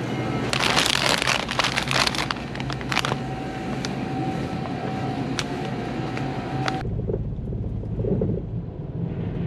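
A plastic snack bag crinkling in the hand over a steady hum. About seven seconds in it cuts to the low, even rumble of road noise inside a moving car's cabin.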